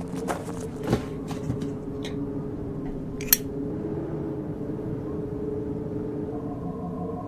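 A few cartoon footsteps crunching over rubbish in the first second and a half, then a single sharp click about three seconds in, over a steady low ambient hum. A steady higher tone joins near the end.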